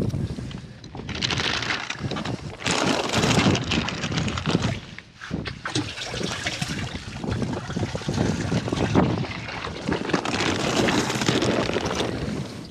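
Clear plastic bag crinkling and rustling in irregular bursts as it is handled, with water sloshing in a boat's livewell.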